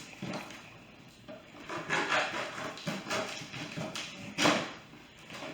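Hands handling and opening a cardboard package: irregular rustling and scraping, with one sharp knock about four and a half seconds in.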